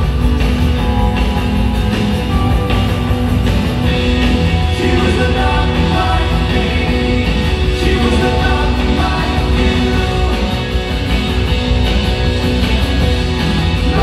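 Live rock band playing at full volume in an arena, heard from the audience: electric and acoustic guitars, drums and keyboards, with a lead vocal.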